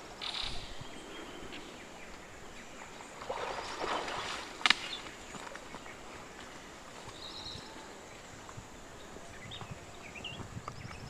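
Lowland tapir splashing through shallow river water at the start, then a rustle a few seconds in and a single sharp knock near the middle. Small birds chirp in short, high calls through the second half.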